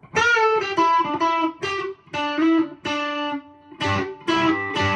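Electric guitar, a Fender '70s Telecaster Custom in the middle pickup position, its Lindy Fralin High Output Telecaster bridge pickup combined with the neck wide range humbucker, playing short phrases of picked notes and chords with brief gaps between them. The two pickups sound together in correct polarity and phase.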